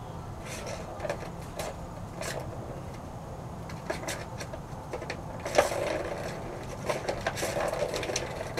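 Irregular plastic clicks and rattles from a round plastic cat toy as a kitten bats at it and pounces on it, with one louder knock about halfway through and a flurry of clicks near the end.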